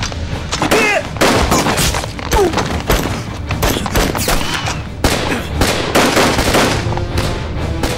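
Rifle gunfire in a dramatized street firefight: loud shots in quick, irregular succession.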